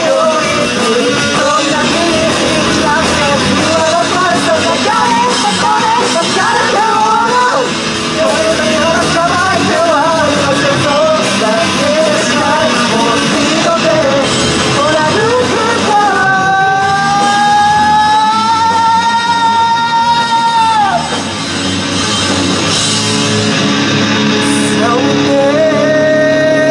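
Live rock band playing: electric guitars, bass and drums under loud lead vocals. The singer holds one long note a little past the middle and starts another near the end.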